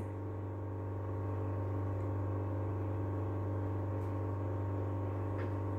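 Steady low electrical hum with a strong deep tone and a row of overtones above it. Two faint ticks come in the second half.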